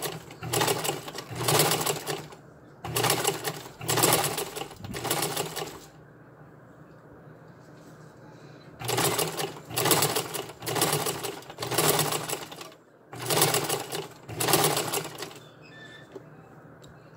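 Vintage black domestic sewing machine stitching ribbon onto a dog collar strap, running in four bursts of a few seconds each with short stops between and a longer pause in the middle.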